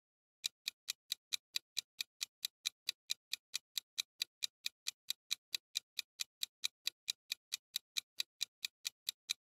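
Clock-ticking sound effect for a quiz countdown timer: sharp, even ticks, roughly four to five a second, starting about half a second in.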